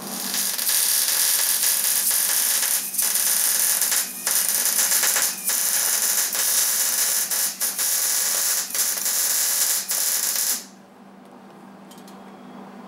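MIG welding with a 110-volt Hobart wire-feed welder, joining steel spacer tubes to a truck frame: the arc crackles and sizzles for about ten seconds with a few brief breaks, then stops.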